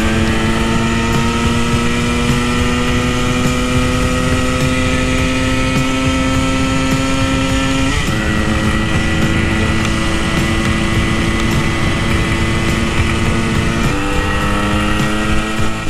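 A vintage Yamaha enduro's two-stroke engine under load on a riding pass, its pitch climbing slowly through the gear. It shifts up twice, about halfway through and again near the end, and each time the pitch drops and starts to climb again. The slow climb fits a bike that is down on power and struggling to get past about 55 mph. Wind rushes on the microphone.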